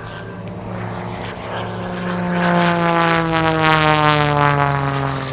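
MXS-RH aerobatic monoplane's 385-horsepower Lycoming engine and propeller passing low in a fly-by. It grows louder to a peak about two and a half seconds in, and its pitch drops steadily as it goes by.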